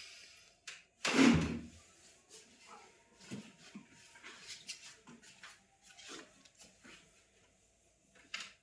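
A single heavy thump about a second in, as the chiropractic thrust is delivered on the patient's body and treatment table, followed by scattered light knocks and rustling as the patient shifts on the table, with one more short knock near the end.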